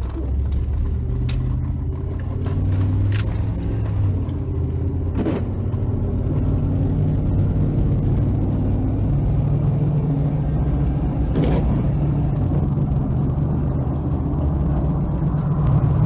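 Pickup truck running down the road, heard from inside the cab: a steady engine and road rumble whose pitch shifts a few times with speed, with a few light clicks and rattles.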